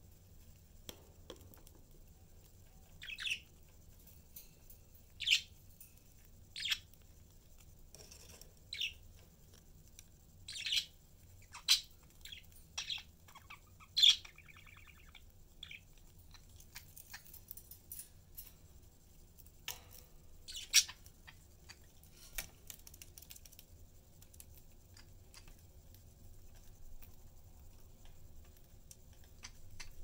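Budgerigars chirping: short, sharp single calls every second or two, with a brief warble near the middle. The calls thin out in the last third.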